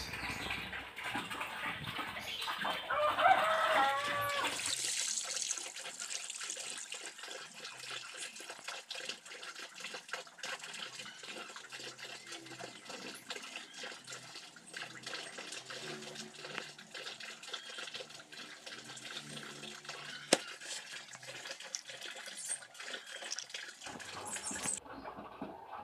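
Soaked rice seed and water being worked in a plastic basin: a dense, fine crackle and trickle of wet grains and water. About three seconds in, a farm animal calls briefly.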